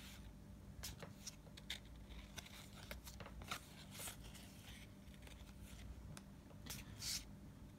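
Trading cards being handled, faint scattered clicks and rustles as cards are slid and flipped, over a steady low hum.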